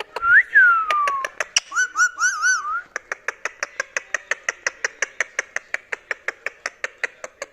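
Indian ringneck parakeet whistling: one note that rises and then slides down, then a short wavering warble. After that comes a long run of fast, even clicks, about seven a second.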